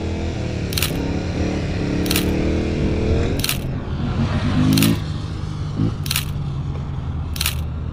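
Sharp camera-shutter clicks repeating evenly about every 1.3 s, over a Yamaha R7 motorcycle's parallel-twin engine and wind rumble; the engine revs up, rising in pitch, twice.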